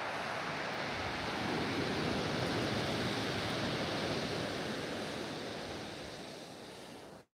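Sea surf breaking on a steep shingle beach: a wave rushes in, swelling and then fading as the water washes back over the pebbles.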